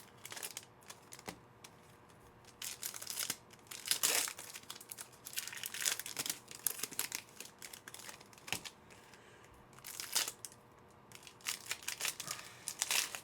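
Foil trading-card pack wrappers tearing open and crinkling in the hands, in irregular bursts.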